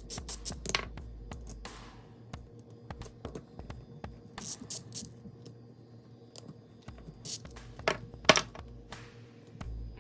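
Small sharp metallic clicks and clinks in scattered clusters, near the start, around four to five seconds in and again near eight seconds: a worn hex driver working the tiny head bolts out of a nitro model engine, with the small steel bolts set down on a hard surface.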